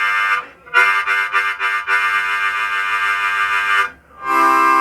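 Diatonic harmonica in C playing held chords: a drawn chord breaking off just after the start, then a long drawn chord pulsed a few times near its start, then a lower chord about four seconds in.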